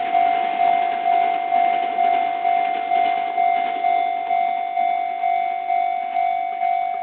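Japanese railway level-crossing warning bell ringing: one pitched ding repeating about twice a second, each fading before the next. It is the signal that a train is approaching and the crossing is closed.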